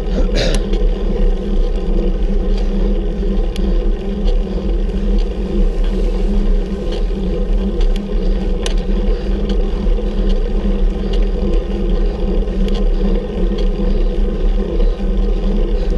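Steady rumble of wind and road vibration on a bicycle-mounted camera during a climb, with a short sharp click about half a second in and a few faint ticks.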